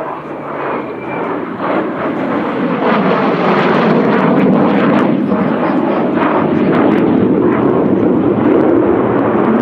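Jet noise from a Mikoyan MiG-29's twin Klimov RD-33 turbofan engines as the fighter manoeuvres overhead. It is loud throughout, grows louder about three seconds in and then holds, with a crackling edge.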